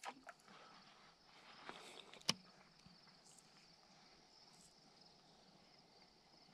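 Near silence with the faint, steady chirring of crickets, and a single sharp click about two seconds in.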